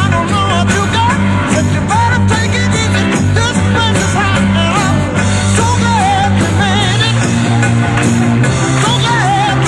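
Rock song playing as background music: a singing voice over bass and drums with a steady beat.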